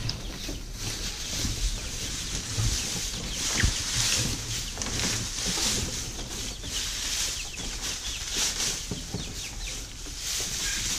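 Dry straw bedding rustling and crackling as handfuls are tossed and spread over a brooder floor, with young chicks cheeping now and then.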